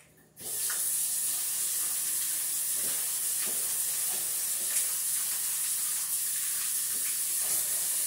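Kitchen faucet turned on and running steadily, water spraying over raw shrimp to rinse them, with a few faint clicks of handling. The hiss starts suddenly just after the start.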